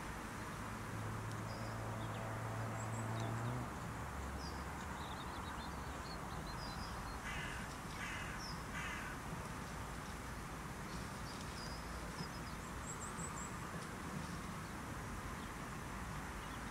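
A crow cawing three times in quick succession about eight seconds in, over faint high chirps of small birds and a steady outdoor background. A low hum runs through the first few seconds.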